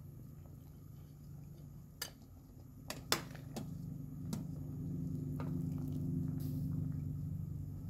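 A metal ladle clinking against a stainless steel cooking pot and a ceramic bowl as boiled green beans are scooped out, several sharp clinks, over a steady low hum that swells midway.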